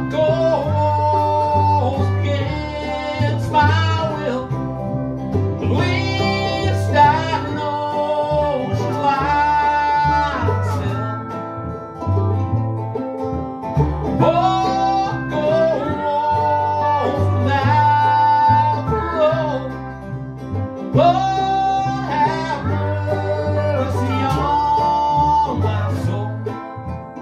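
Small acoustic string band playing a slow instrumental passage. A pedal steel guitar glides up into long held melody notes in repeating phrases over bowed cello, guitar and plucked baritone ukulele or banjolele.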